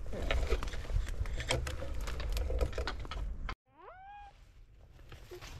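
Footsteps and rustling through grass with wind rumbling on the microphone, then after a sudden cut a single short rising whine-like animal call.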